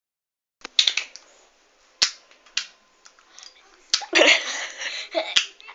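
Child-resistant push-and-turn cap on a cough medicine bottle clicking as a child twists it without pressing down, so the cap skips round instead of opening. A few sharp single clicks over the first four seconds, then a busier run of clicking and scraping.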